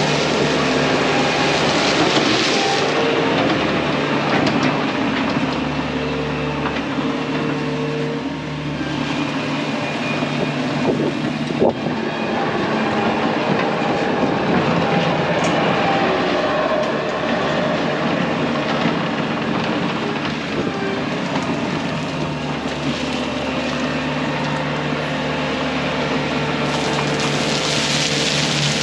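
Bobcat T630 track loader running steadily at working speed, its diesel engine and tracks clattering as it spreads gravel, with one sharp knock about twelve seconds in.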